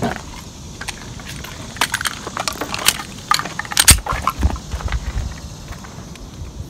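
Metallic clicks and clacks of a Glock 29 10mm pistol being worked by hand to clear a malfunction: tap, slide racked, magazine handled. The sharpest clack comes about four seconds in.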